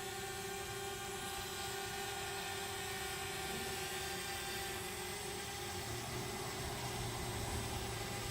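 A steady machine drone with a constant hum, joined by a low rumble about six seconds in.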